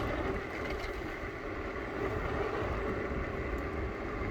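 Bird electric scooter on the move: a steady low rumble with a faint steady whine, picked up by a phone in the rider's shirt pocket.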